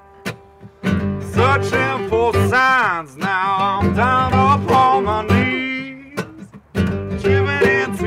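A small bluegrass string band playing: acoustic guitar, mandolin and upright bass, with a man singing in long notes with vibrato. The music comes back in about a second in after a brief lull, and it dips again shortly before the end.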